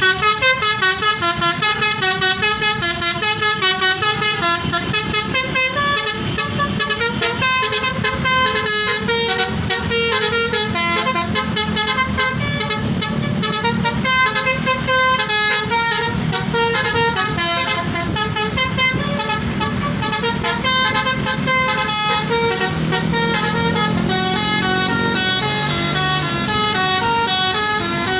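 Tourist bus's telolet multi-tone horn playing a fast melody of stepping notes. For about the first six seconds it pulses in quick blasts, then runs on as an unbroken string of notes over the low sound of the bus's engine.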